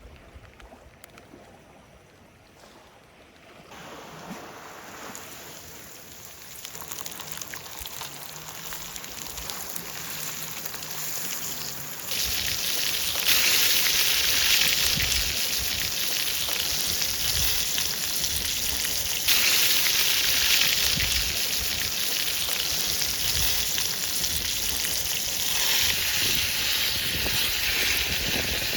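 Fish frying, a sizzle that starts faint a few seconds in, grows, and jumps louder about twelve seconds in and again near twenty seconds.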